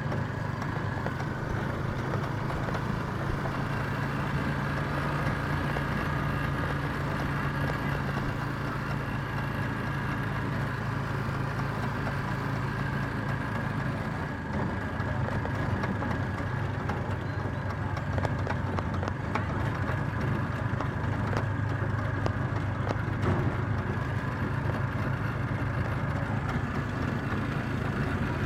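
Motor vehicle's engine and road noise heard from on board while riding: a steady low engine drone that dips briefly about halfway and then picks up again, with scattered rattles and knocks over the second half.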